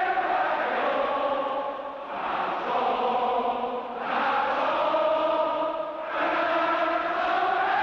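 A large stadium crowd singing together in unison, in long held phrases of about two seconds each with short breaths between them.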